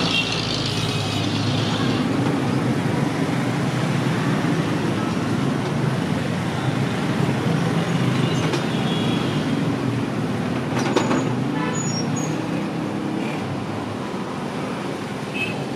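Steady street traffic: engines of passing vehicles running, with a sharp knock about eleven seconds in.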